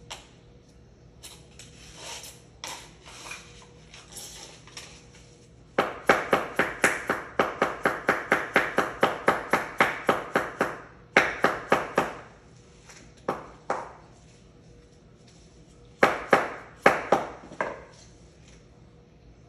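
Hammer blows in fast runs of about four strikes a second, each blow ringing briefly, with a few pauses between bursts.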